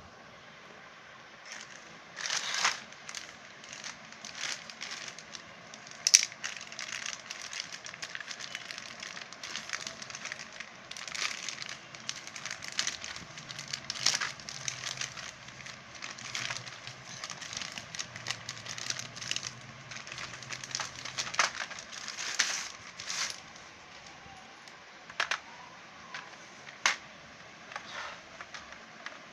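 Plastic packaging crinkling and crackling as it is handled, in irregular bursts with a few sharper clicks, the loudest about six seconds in.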